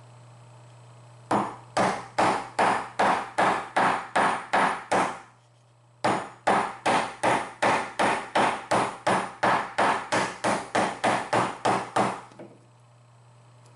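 A wooden mallet striking a steel chisel to chop out a mortise in a wooden bench top. The blows come in two quick runs of about three a second, with a short pause about five seconds in.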